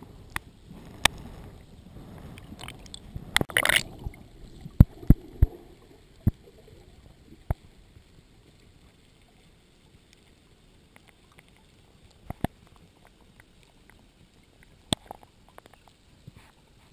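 Underwater sound picked up through a camera housing: low water rumble at first, a short rush of noise about three and a half seconds in, then scattered sharp clicks and knocks every second or few, the loudest three in quick succession about five seconds in.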